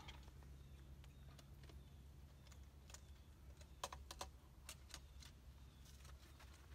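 Near silence, broken by a few faint scattered clicks and ticks, with a short quick cluster of them about four seconds in.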